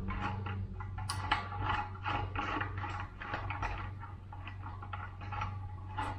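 Metal clicks and scrapes from hand tools at the eBike's wheel axle as the axle washer and nut are fitted and tightened: a quick, uneven run of short clicks, about three a second, over a steady low hum.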